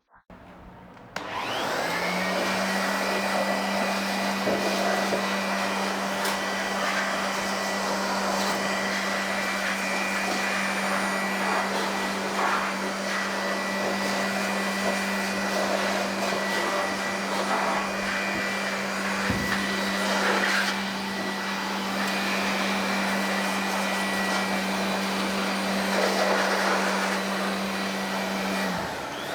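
Electric air blower blowing dust out of a desktop PC cabinet. It is switched on about a second in, its motor rising to a steady whine with a rush of air, and it is switched off near the end, its pitch falling as it winds down.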